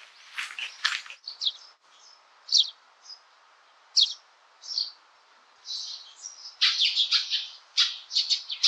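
Wild birds calling in a garden: short, high chirps, at first a few single calls a second or so apart, then a busy run of chattering calls through the second half.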